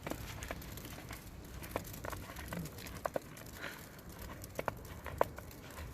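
Footsteps crunching in snow, each slow step giving a few sharp crackles, over a low steady rumble.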